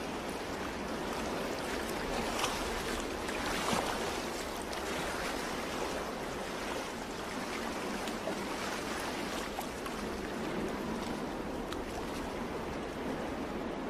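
Sea surf washing onto a beach: a steady rushing of waves.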